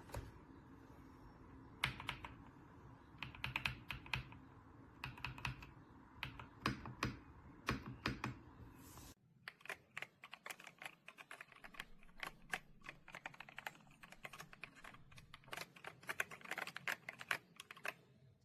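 Typing on the RK Royal Kludge R98 Pro mechanical keyboard: a fast, irregular run of keystroke clicks. About halfway through there is a cut, and the low background hum drops away while the typing goes on.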